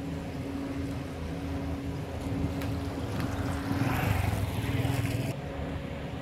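Engine of a multi-axle heavy-haul transporter running steadily as it moves slowly under load, a constant low hum with a steady tone. About three seconds in it grows louder with a rushing noise, which cuts off suddenly near the end.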